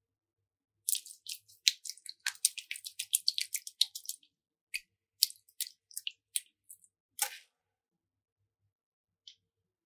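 Slime being squished and worked by hand: a quick run of small wet clicks and pops for about three seconds, then a few scattered ones.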